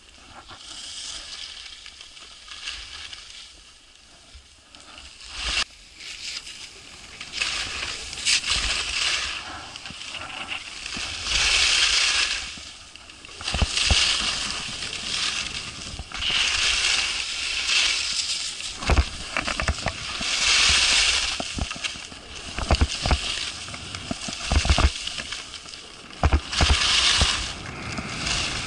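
Skis scraping and carving across packed snow, a hiss that swells and fades with each turn every couple of seconds, mixed with scattered low thumps that come more often near the end.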